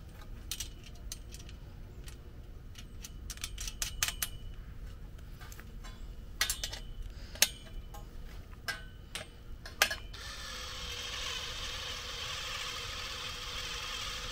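Scattered clicks and clinks of small parts and tools as a greenhouse door frame is screwed together. For the last four seconds a steady hiss with a faint hum runs and then cuts off abruptly.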